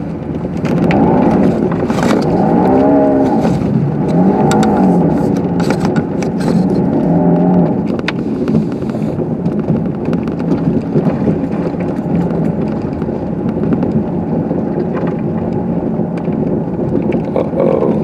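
Car engine heard from inside the cabin while driving through deep snow, revving up and down several times in the first half, then running more steadily, with scattered knocks and thumps from the snow under the car.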